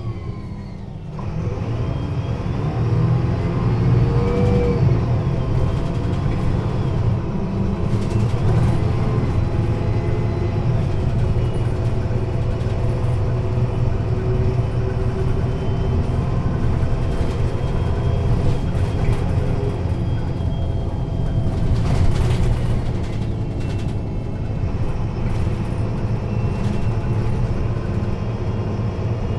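MAN NL 223 city bus's six-cylinder diesel running, heard from inside the passenger cabin. Its pitch rises over the first few seconds and then it runs steadily, with a single knock about two-thirds of the way through.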